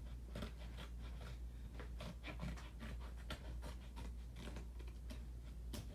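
Scissors snipping and scraping at a cardboard mail package: a quick, uneven run of small clicks and scratches, over a steady low hum.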